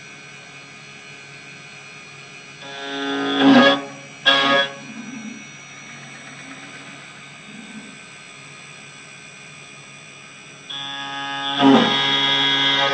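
Desktop CNC engraving machine milling a metal part: the spindle runs with a steady high whine, and twice, about three seconds in and again near the end, the end mill's cut rises into a loud pitched screech.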